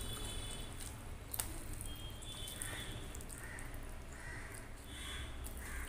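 Hand mixing rice and fried brinjal on a steel plate, with one sharp click about a second and a half in. From about halfway, a bird in the background gives a run of short calls repeating less than a second apart.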